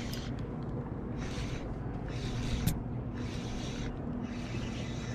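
Spinning reel being cranked to bring a small fish to the boat, with patches of reel whir and one sharp click, over a steady low hum and water and wind noise.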